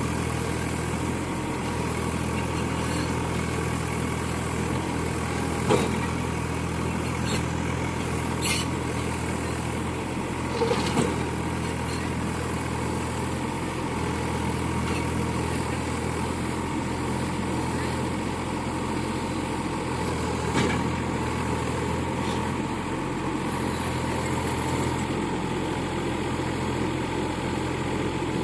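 Mini excavator's Yanmar diesel engine running steadily, with a few sharp knocks about 6, 11 and 20 seconds in.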